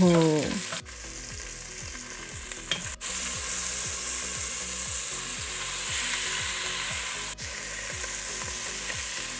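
Skin-on chicken pieces sizzling in hot olive oil in an enameled cast iron pot as they brown: a steady frying hiss that drops out suddenly for an instant a few times.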